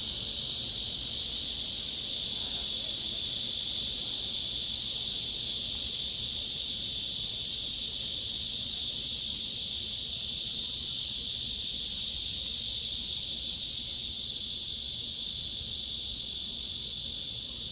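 Cicadas buzzing in a continuous, steady high-pitched chorus, used as a tinnitus masking sound.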